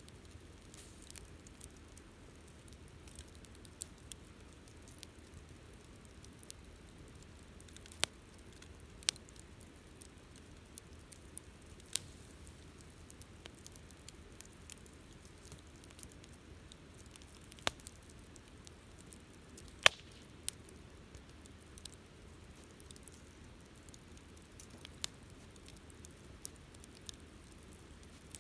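Wood campfire crackling: a faint steady hiss with sharp, irregular pops every second or few, the loudest about twenty seconds in.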